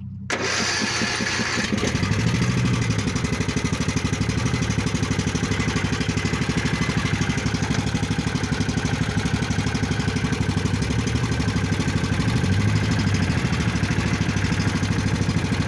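Dirt bike engine starting and then running steadily with a fast, even firing beat.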